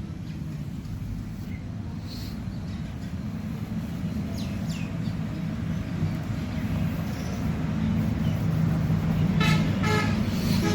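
Road traffic: a vehicle engine rumbling steadily and growing louder toward the end, with a short horn toot about nine and a half seconds in.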